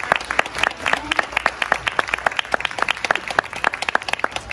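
Audience applauding, a dense patter of claps that thins to scattered single claps and cuts off near the end.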